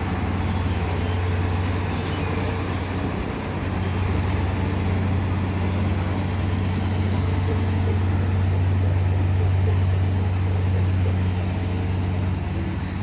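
Heavy diesel engine of a construction machine running steadily with a deep, even hum.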